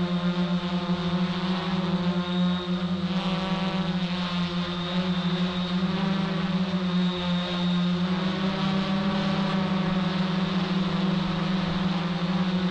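Hexacopter's six electric motors and propellers droning at a steady pitch from the camera on board the craft, with small shifts in pitch as it manoeuvres.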